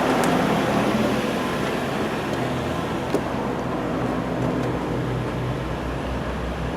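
Steady low mechanical hum under a rushing noise, with a single short click a little after three seconds in.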